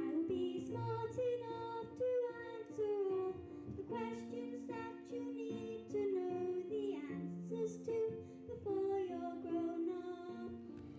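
A young girl singing a solo into a microphone over instrumental accompaniment with long held notes.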